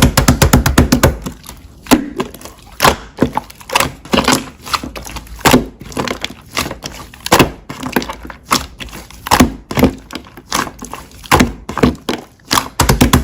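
Slime being pressed and squished by hand, giving runs of rapid crackling clicks with louder single snaps about once a second.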